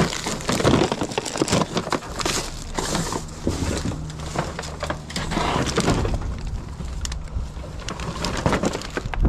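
Large plastic bags rustling and crinkling as they are handled and shifted, with scattered light knocks and scrapes.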